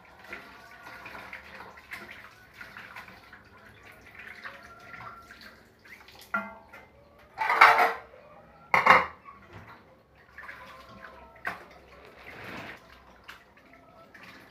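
Water trickling from a kitchen tap into a stainless-steel sink as hands work santol fruit under it to rinse out the salt. Two loud clattering knocks of kitchenware come a little past the middle.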